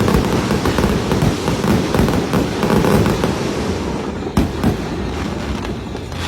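Fireworks going off in a dense, continuous barrage of crackling bursts over a low rumble, with one sharper bang about two-thirds of the way through.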